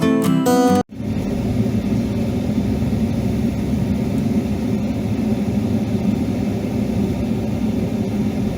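Acoustic guitar intro music that cuts off about a second in, followed by the steady low rumble of a car driving.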